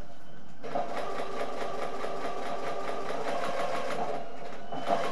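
Electric domestic sewing machine stitching a seam at speed, starting up about half a second in and running steadily with rapid, even needle strokes.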